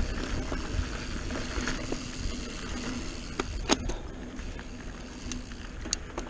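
Mountain bike rolling fast over a dirt singletrack: a steady rumble of tyres on dirt and wind on the camera microphone, with a few sharp clicks from about the middle on.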